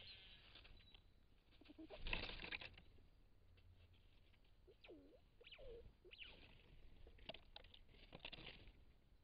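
Faint rustling and scratching of a red squirrel moving and feeding right beside the microphone among logs and grass, loudest about two seconds in, with scattered soft clicks later on. Two short low dipping calls sound about halfway through.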